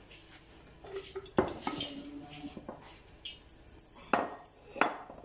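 Metal cookware and utensils clanking: three sharp knocks, about a second and a half in and twice close together near the end, the first leaving a brief ringing, with small clatters in between.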